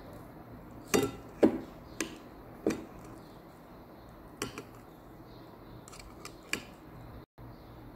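A kitchen utensil knocking and clinking against crockery while ground prawn paste is scooped into a bowl: a string of sharp knocks, the loudest in the first three seconds, then a few lighter clinks.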